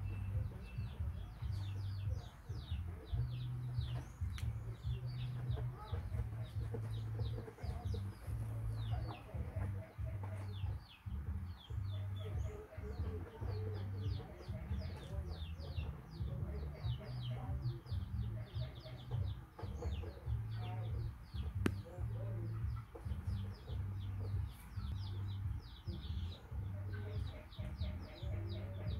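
Chickens clucking, with many short, high, falling cheeps coming thick and fast throughout, over a steady low hum.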